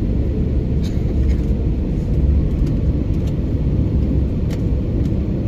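Airliner cabin noise in flight: a steady low rumble of the jet engines and rushing air, heard inside the cabin from a window seat over the wing.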